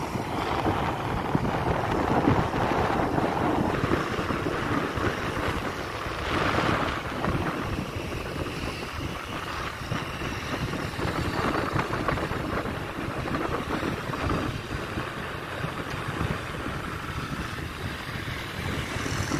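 Wind buffeting the microphone while riding, over steady engine and road noise from the moving motorbike and passing traffic.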